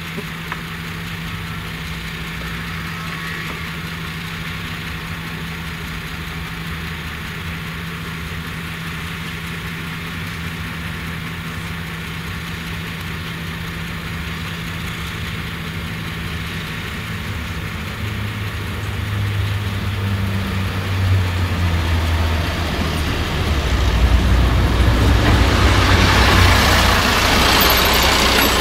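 Diesel engine of a heavy truck idling with a steady low hum, with a ROPA Maus 5 sugar-beet cleaner-loader working farther off. The engine sound grows louder about two-thirds of the way through, with a harsher rushing noise over it near the end.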